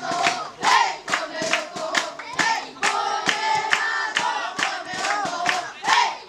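Football supporters chanting together in unison, clapping in rhythm at about three claps a second.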